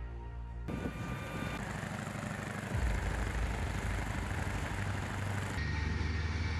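Steady engine and machinery rumble that changes abruptly several times. About a second before the end it becomes a steadier low drone of a fighter jet's engines running on the ground.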